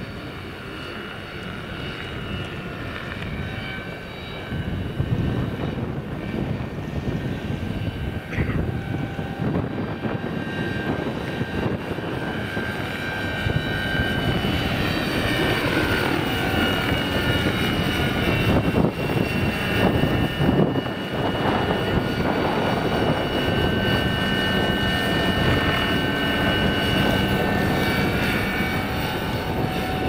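Large electric scale model Schweizer 300C helicopter in flight. The Kontronik motor and drive give a steady high whine over the low noise of the rotors, with strong wind rumbling on the microphone. It grows louder from about halfway through as the helicopter comes closer, and the pitch shifts as it turns and passes near overhead.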